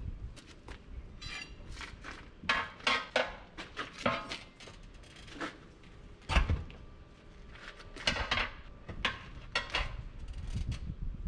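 Irregular metal clinks and clanks of tire-changing tools knocking against the steel rim of a tractor rear wheel while the 16.9-30 tire is worked, some ringing briefly; the loudest knock comes a little past halfway.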